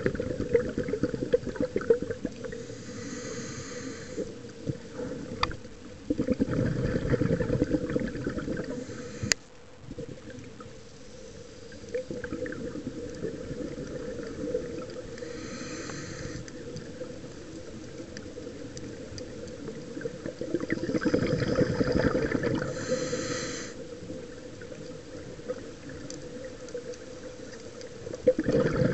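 Scuba diver breathing through a regulator, heard underwater: loud spells of gurgling exhaled bubbles alternate with a higher hiss of air on the inhale, slow and irregular. One sharp click about nine seconds in.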